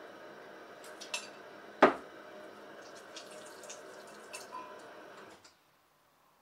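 Glassware clinking and knocking as a glass measuring jug and bottles are handled, with one sharp knock about two seconds in and a few lighter clinks after it. Under them runs a steady hum that cuts off shortly before the end.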